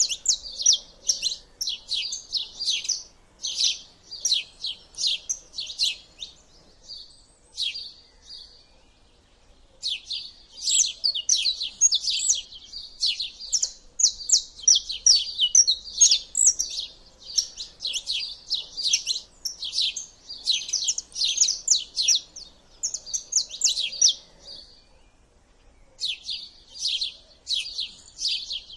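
Small songbirds chirping and twittering in rapid, high runs of notes, with a lull about seven seconds in and another near the end.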